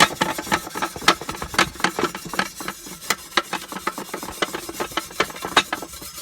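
Small wire brush scrubbing a barbecue griddle in quick back-and-forth strokes, several scrapes a second, lifting degreaser-softened burnt-on food.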